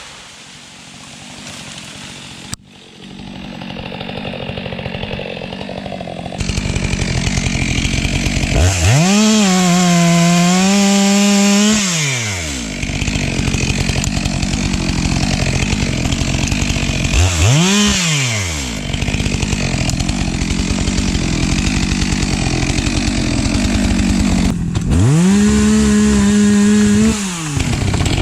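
STIHL MS 462 chainsaw idling and revved up to full throttle three times, each time held for two to three seconds before dropping back to idle.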